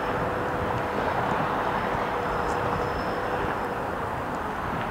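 Diesel-electric locomotive engine (CN 5258) running steadily, with a faint steady whine that fades out about three and a half seconds in.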